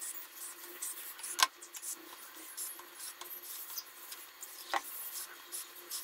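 Plastic syringe drawing up and pushing out water in a stainless steel bowl: faint scratchy rubbing of the plunger and trickles of water, with two sharp clicks of the syringe against the steel bowl, about a second and a half in and near the end.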